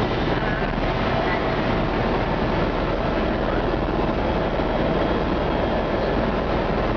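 Helicopter engine and rotors running steadily in flight, heard from inside the cabin as a loud, unchanging noise.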